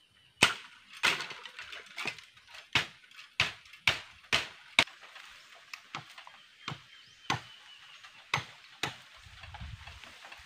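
Machete chopping bamboo: a series of sharp blows, about two a second, that stop shortly before the end.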